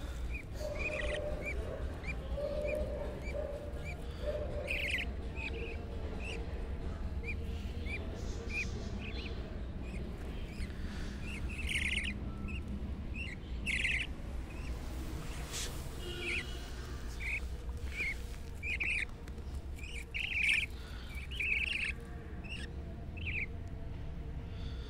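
Baby budgerigars chirping: short high chirps about once a second, with louder, harsher calls now and then, over a steady low rumble.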